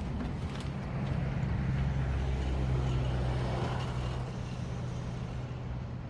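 An engine running steadily with a low hum that grows a little louder in the middle and eases off again.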